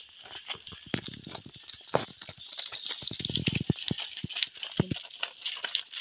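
Live scaly fish thrashing inside a green collapsible mesh net trap as it is handled, an irregular patter of slaps and knocks with a few heavier thuds, over a steady high hiss.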